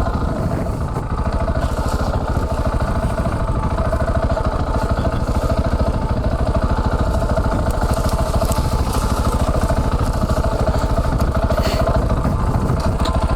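KTM 690 Enduro R's single-cylinder LC4 engine running steadily with an even firing pulse as the dual-sport bike works over loose shale.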